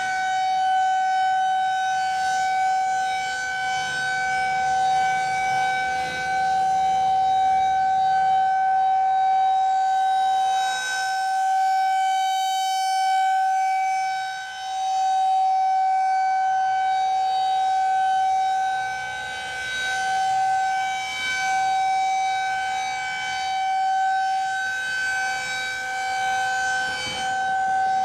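Federal Signal 2001-SRNB rotating outdoor warning siren sounding its steady alert tone in a test. The pitch holds level while the loudness swells and dips every few seconds as the siren head turns.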